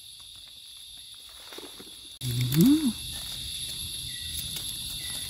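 Insects in the forest droning steadily in two high-pitched bands, starting suddenly about two seconds in. The drone opens with a short, low hum that rises and falls, like a man's voice, and a few faint clicks follow.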